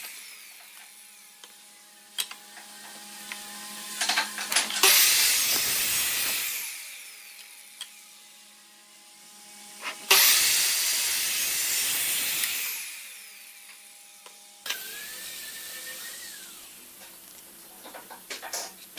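Ryobi sliding miter saw cutting pine boards twice, about five seconds apart; each cut is a loud burst of blade noise lasting a second or two, then dies away as the blade spins down. A few sharp knocks come before the first cut.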